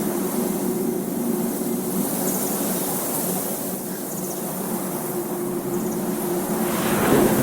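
A steady mechanical drone with a low hum over a rushing noise, swelling briefly near the end.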